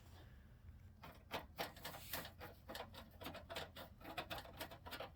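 Faint, irregular clicking and tapping of small metal and plastic parts as a graphics card is seated and secured in a desktop PC case, starting about a second in, several clicks a second.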